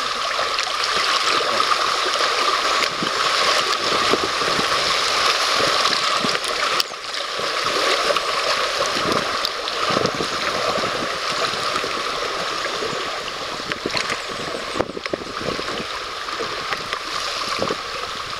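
Shallow river rapids rushing over rocks: a steady rush of water with small splashes, easing a little about seven seconds in and again near the end as the water calms.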